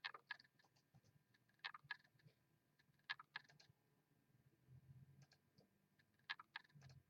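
Faint, irregular clicks of a computer mouse and keyboard, in small clusters, as a list is copied and pasted.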